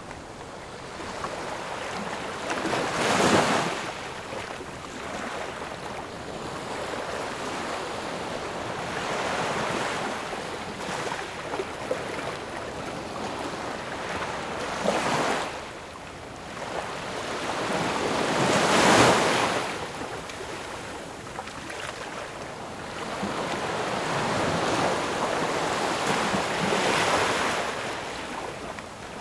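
Ocean waves breaking and washing back in slow surges. The biggest breaks come about three seconds in and near the middle, with smaller ones between.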